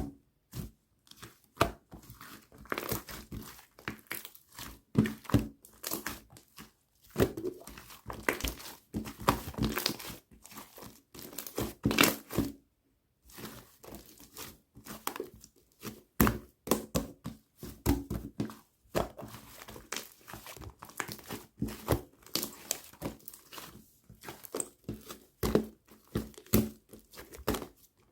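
Crinkly tape-covered squishy toy squeezed and kneaded by hand, giving irregular bursts of crinkling and crackling with short pauses, the longest about 13 seconds in.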